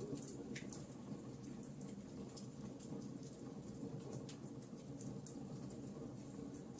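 Wood fire crackling in a fireplace: frequent, irregular small sharp crackles and pops over a steady low background.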